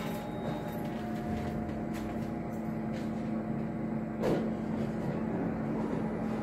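Hotel elevator car running with a steady low hum, then a single knock about four seconds in as the car stops and the doors open.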